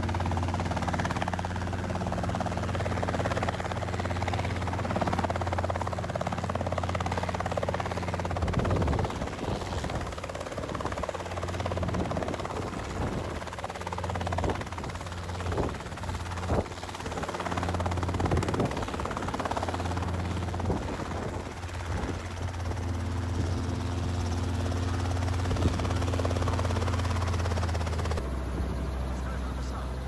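Robinson R22 helicopter hovering low to land, its rotor and piston engine running with a steady low drone over a rushing noise. The sound turns rough and gusty in the middle as it hovers closest, and the drone shifts suddenly near the end.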